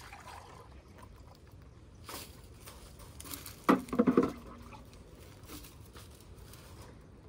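A short clatter of several quick knocks about four seconds in: a bucket and scoop being handled beside a wire animal cage. Light rustling and faint clicks come before it.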